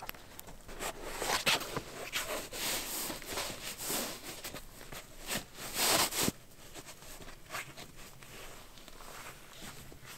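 Irregular rustling and scuffing noises, a run of short uneven sounds with the loudest about six seconds in.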